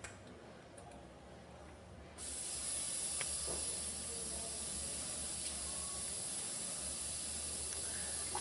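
Carbon dioxide hissing steadily out of a Fermentasaurus PET fermenter's pressure relief valve, starting suddenly about two seconds in. The fermenter is being vented down from about 12 PSI to a low pressure for serving.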